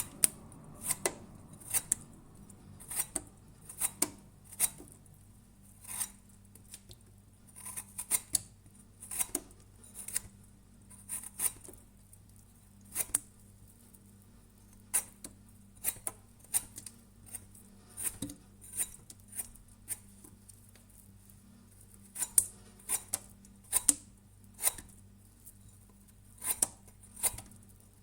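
Persimmon being peeled: short, crisp scraping strokes of a blade through the skin, about one or two a second at an uneven pace.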